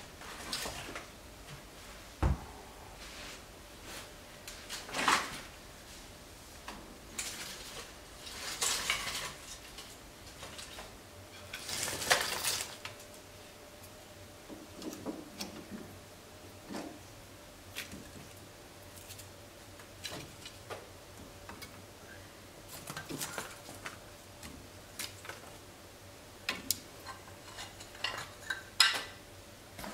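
Split kindling sticks knocking and clattering as they are laid by hand in the firebox of a cast-iron wood stove, with clanks from the stove's metal. Scattered irregular knocks, the sharpest one about two seconds in.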